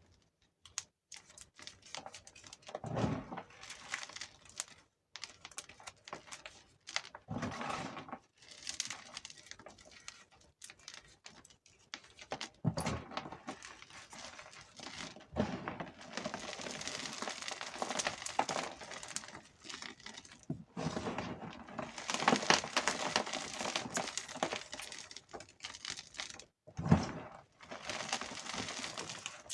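Gym chalk being crushed between the fingers: crisp, crackly crunching and crumbling in bursts, longest in the second half, with a few dull low thumps.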